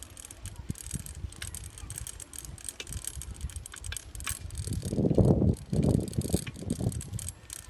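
Bicycle being ridden, with light rattling and scattered clicks from the bike. About five seconds in come three loud, low rumbling bursts.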